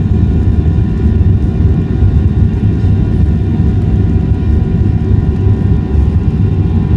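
Jet airliner's engines heard from inside the passenger cabin as the plane rolls on the ground: a loud, steady low rumble with several steady whining tones above it.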